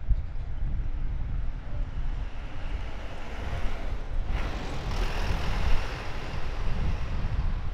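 Outdoor road ambience: wind rumbling on the microphone, with a swell of traffic noise that builds, peaks around five seconds in and fades.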